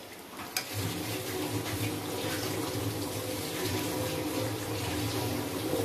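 Semolina cutlets deep-frying in hot oil in a steel wok: a steady sizzling hiss that comes up under a second in, with a low steady hum underneath.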